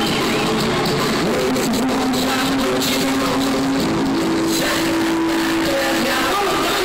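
Live rock band playing on stage, heard from within the crowd: loud and even in level, with drum hits and long held notes near the middle.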